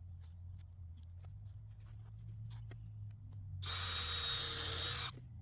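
Power drill running in one burst of about a second and a half near the end, with a steady high whine, then stopping sharply. Scattered light clicks and a low steady hum run underneath.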